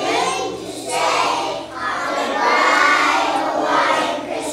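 A children's choir singing, with a long held note in the middle.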